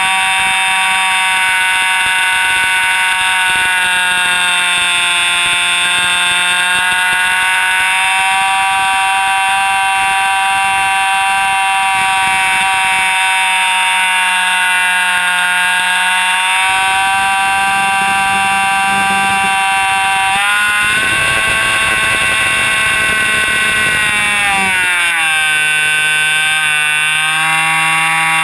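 Jett .90 two-stroke glow engine of an RC airplane in flight, heard close up from a camera on the plane: a loud, high-pitched whine whose pitch sags and recovers slightly. About 21 s in, a rush of air joins it, and about 25 s in the pitch slides down and settles lower.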